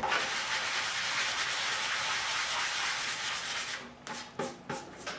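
Fine foam sanding block rubbed by hand back and forth over cured body filler on a motorcycle gas tank: a steady scratchy hiss for nearly four seconds that then stops, followed by a few short scuffs. The filler is being sanded smooth and feathered into the surrounding paint.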